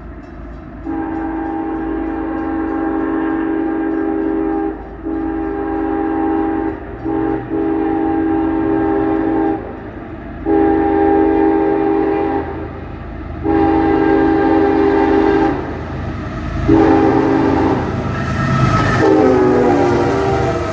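CSX diesel locomotive's multi-chime air horn sounding a series of long blasts with a couple of quick short toots between them: long, long, short, long, then several more long blasts. Near the end the chord's pitch slides down as the locomotive passes. A low engine rumble runs underneath.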